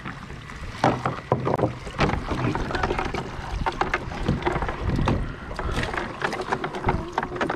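Wet cast net being hauled up out of shallow water, water splashing and dripping off the mesh, with many quick clicks and knocks as it is handled.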